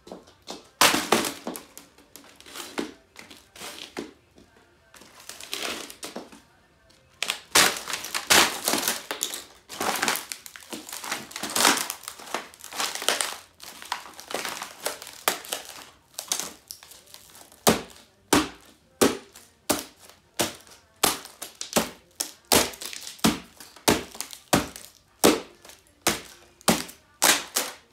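High heels stamping and grinding on a wrecked laptop, its plastic case, keyboard and cracked screen crunching and crackling underfoot. In the second half the stamps come as a steady run of sharp knocks, about two a second.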